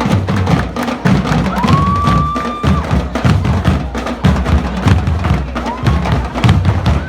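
Drum and lyre band playing: drums pounding a steady beat, with a few long, high held tones over it.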